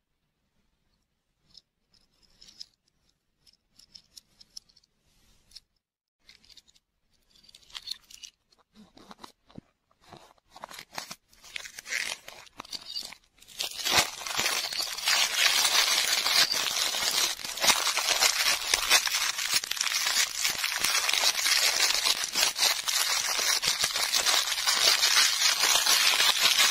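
Handling noise, soft taps and light rustles, then from about halfway a clear plastic wrapper crinkled and pulled at by fingers: a loud, continuous crackling.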